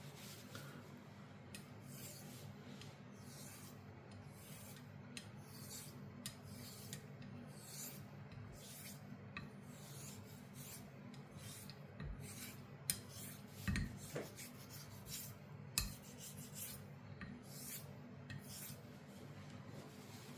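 Sheffield straight razor being honed on a sharpening stone: a steady run of short rasping strokes, about one a second, with a few sharper knocks in the middle as the blade is handled against the stone.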